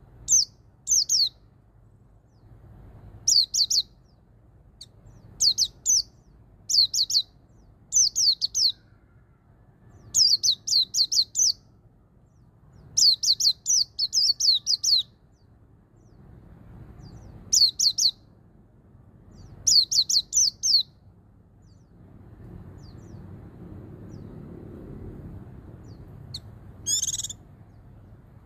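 White-eye (pleci) singing its 'ngalas' song: clusters of two to five quick, high, downward-sliding notes, repeated every second or two, with a short harsher burst near the end.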